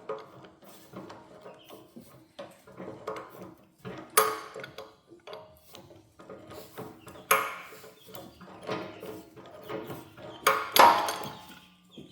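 Metal parts being handled and knocked about: light taps and rattles, with four sharp clanks that ring on briefly, the last two close together near the end.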